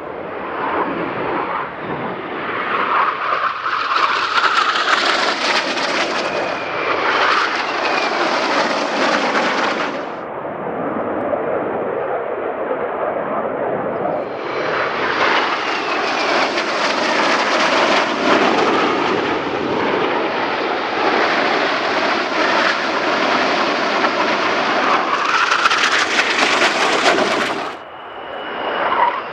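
Formation of F-5E Tiger II fighter jets flying past, their twin turbojet engines making a loud jet roar. The roar builds and drops away twice, falling off sharply about ten seconds in and again near the end.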